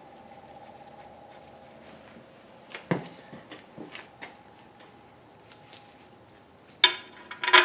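Loose steel bolts clinking in gloved hands as they are sorted: a few light clicks, then two sharp metallic clanks with a short ring near the end.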